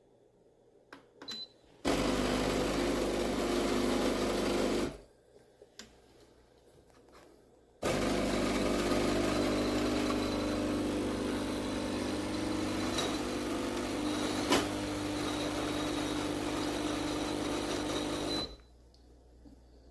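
CASABREWS CM5418 espresso machine's vibratory pump buzzing steadily as it pushes water through. It runs twice, first for about three seconds and then for about ten seconds, and a sharp click falls near the middle of the second run.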